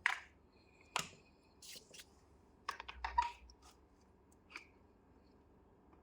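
Sharp clicks and taps of small hard objects being handled, spaced irregularly, with a quick cluster about three seconds in.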